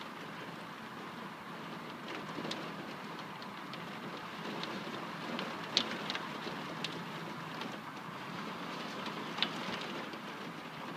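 Thunderstorm rain falling steadily, with scattered sharp ticks of drops striking surfaces; the most prominent are about six and about nine and a half seconds in.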